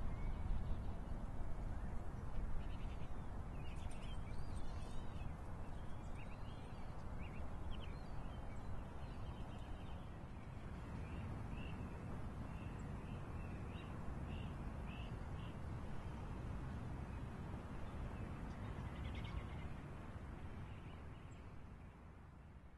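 Outdoor park ambience: a steady low rumble with small birds chirping on and off, fading out near the end.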